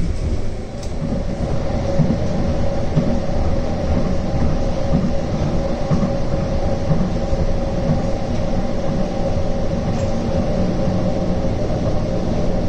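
Edinburgh tram, a CAF Urbos 3, heard from inside the passenger saloon while running along the track: a continuous low rumble of the wheels on the rail with a steady whine over it.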